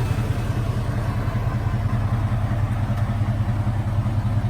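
Pickup truck engine idling steadily with an even low rumble.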